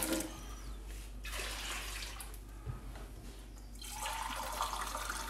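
Kitchen tap running warm water into a mug, the flow thinning in the middle and running fuller again from about four seconds in.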